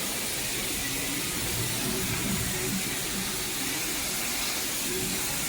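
High-pressure spray wand spraying water, a steady hiss, with faint voices underneath.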